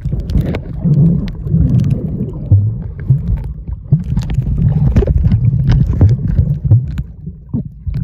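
Seawater sloshing around a submerged camera during snorkelling: a loud, muffled low rumble of moving water with scattered clicks and bubbling.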